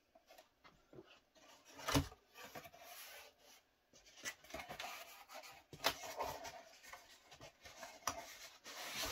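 Cardboard packaging being handled and opened, with irregular rubbing and scraping and scattered clicks. There is a thump about two seconds in.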